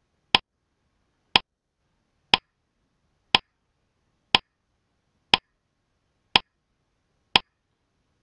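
Quiz countdown timer tick sound effect: eight sharp clock-like ticks, one a second, with silence between them.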